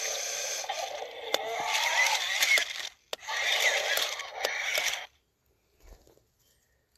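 Remote-control T. rex toy's plastic mechanism rattling and scraping, with several sharp clicks; it stops about five seconds in.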